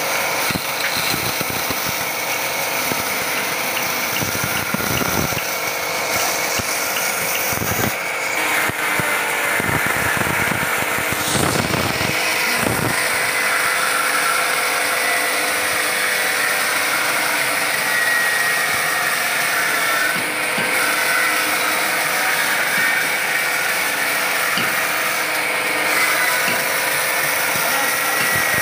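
Large band saw running and cutting lengthwise through a slab of sheesham (Indian rosewood): a steady, even whine with a few low knocks in the first half.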